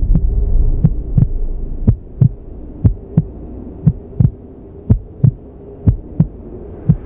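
Heartbeat sound effect: paired low thumps, lub-dub, about once a second, over a steady low hum. A louder low rumble fades out over the first two seconds.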